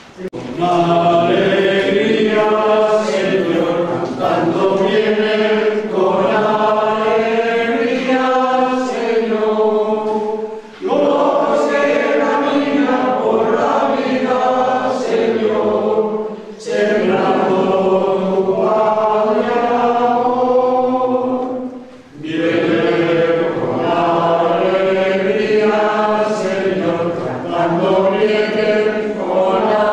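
A congregation of men and women singing a hymn together in long held phrases, pausing briefly for breath between them.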